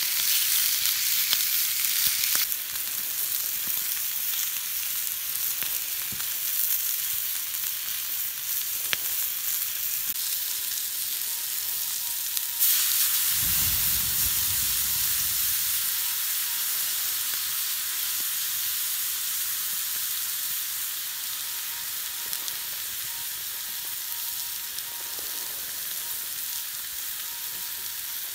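Food sizzling steadily in a hot pan, becoming suddenly louder a little before halfway through, with a brief low rumble soon after.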